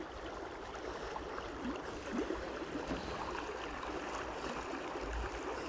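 Creek water running steadily.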